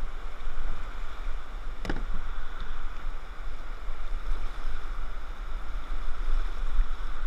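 Whitewater rapids rushing steadily around a plastic kayak, heard through a GoPro on the boat, with a low buffeting rumble. There is a single sharp knock about two seconds in.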